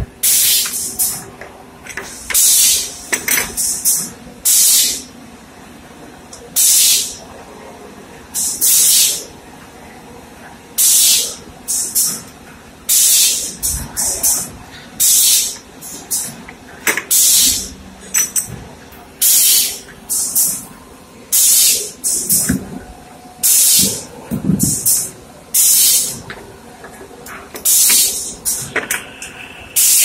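Short, loud hisses of air from a USB cable moulding machine, about one every second or two, over the machine's steady low hum.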